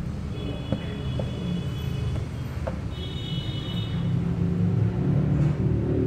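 Plastic engine cover of a Mazda CX-5 being pressed down onto its mounts by hand: a few light clicks and knocks in the first three seconds. Under them runs a steady low rumble that grows a little louder near the end.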